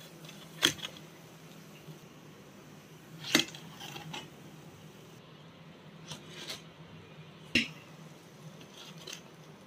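Black slotted spatula knocking and clinking against a plate and dishes as fried bread pakoras are set out. There are three sharp knocks, the first about a second in, one midway and one near the end, with a few softer clicks between them.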